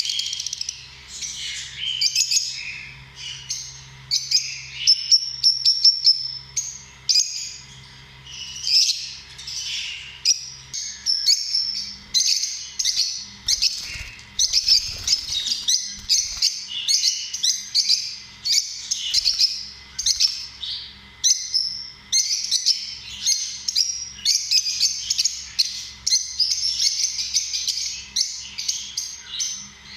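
Lovebirds chirping, a rapid stream of high-pitched calls one after another with hardly a pause.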